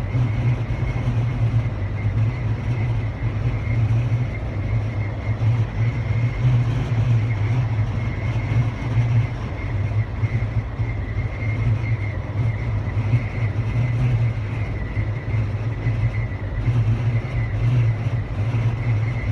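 Wind and road noise inside the cabin of a 2-inch-lifted 2015 Jeep Wrangler Unlimited on 32-inch tires cruising steadily at 70 mph: a low drone under rushing air. A faint steady high whistle runs through it, which the owner puts down to the brackets of the roof light bar.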